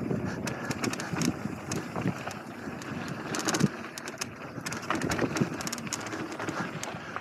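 Mountain bike descending a dirt trail: tyres rolling over loose dirt and the bike rattling over bumps in quick irregular clicks, with wind buffeting the camera's microphone.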